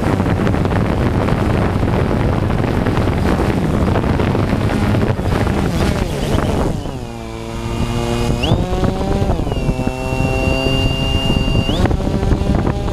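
DJI Phantom 2 quadcopter's motors and propellers heard from the onboard camera. For the first six seconds there is a loud rush of prop wash and wind on the microphone as the drone comes down onto the ground. Then the rush drops away and the motors whine at low throttle: the pitch falls, jumps up, holds steady, and steps up again near the end.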